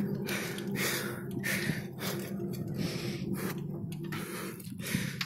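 A man breathing hard while pedalling a bicycle: quick, even breaths, roughly two a second, over a steady low hum.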